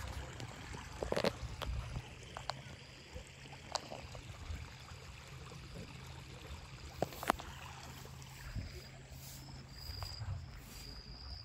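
Muddy rainwater flowing in a flooded drainage ditch: a faint, steady wash, with scattered clicks and knocks and a few short high-pitched chirps near the end.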